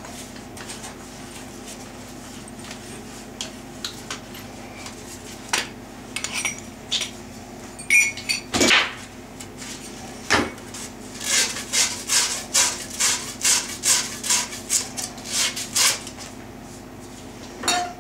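Metal tools and copper plumbing fittings being handled: scattered clinks and knocks, then a quick run of scraping or rattling strokes, about two a second, for several seconds.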